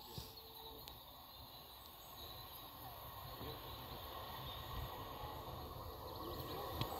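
Distant diesel multiple unit approaching along the line, a faint low rumble that grows slowly louder.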